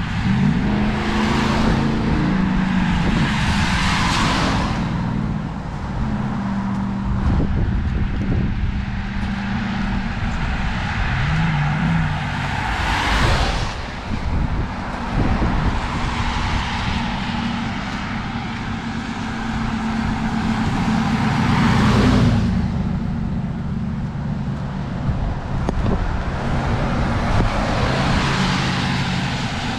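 Cars passing one after another on a rain-wet road, each swelling to a tyre hiss and fading, about five in all. A steady low rumble of wind on the microphone runs underneath.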